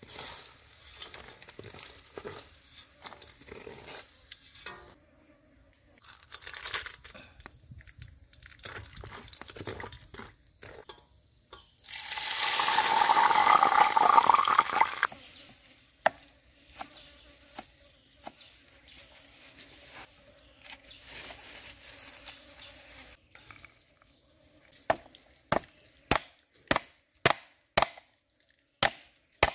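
Light scrapes and clicks of fried snake pieces being lifted from a wok into a woven basket, then a loud rattling rush for about three seconds as fried peanuts are tipped from the wok onto them. Near the end, a cleaver chops garlic on a wooden block: about nine sharp chops, roughly two a second.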